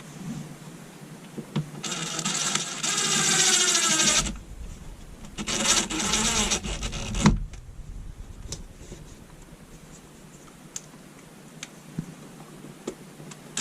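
Cordless drill/driver motor running in two runs of about two seconds each, driving screws to fix the switch in place. The second run ends in a sharp click, followed by a few faint ticks.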